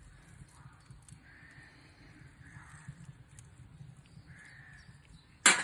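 Crows cawing faintly in the distance, a few separate calls, then a sudden loud, harsh sound right at the end.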